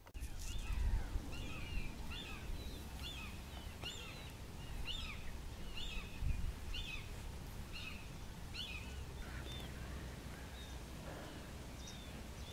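Birds calling: a repeated short, high, hooked call about twice a second that grows sparser after about nine seconds, over a steady low rumble.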